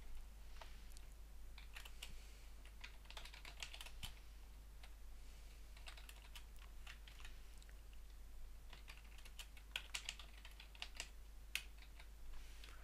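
Faint typing on a computer keyboard: irregular runs of key clicks with short pauses between them, over a low steady hum.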